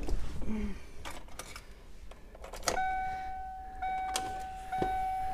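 Key going into and turning in a newly fitted Ford Mustang ignition lock cylinder, a few sharp clicks. About two and a half seconds in, the car's dashboard warning chime starts: a steady tone restarting with a click about once a second.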